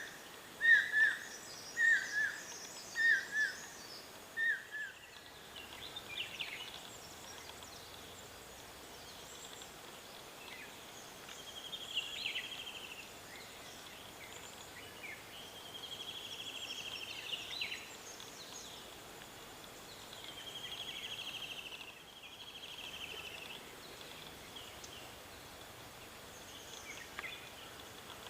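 Wild birds calling. A run of loud, down-slurred whistled notes comes about one a second and stops about five seconds in. After that there are fainter trills a second or two long and scattered short chirps.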